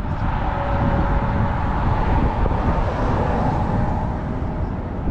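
Steady rumble of travelling along a road: wind and road noise on the camera microphone, with a faint steady hum underneath.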